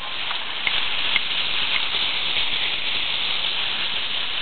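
Steady hiss of rushing, splashing sea water and wind around a boat at sea.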